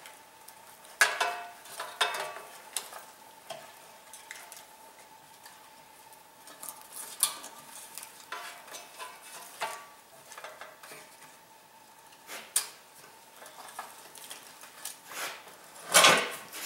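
Small metal fittings clicking and scraping as a pressure valve is screwed by hand onto an air compressor tank's fitting, with rubber air hose shifting. A louder knock and rustle comes near the end.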